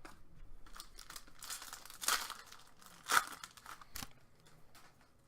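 Wrapper of a 2018-19 Upper Deck Series 1 hockey card pack crinkling and tearing as it is pulled open, loudest about two and three seconds in, with a sharp click near the fourth second.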